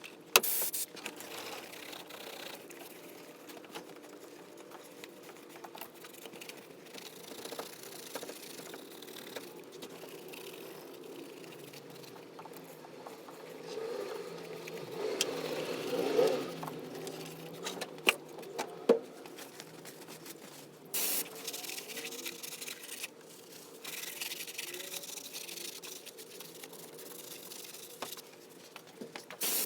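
Small scrapes, rubbing and rattles of tools and parts being handled during engine work, with a few sharp clicks: one just after the start and two close together a little past the middle.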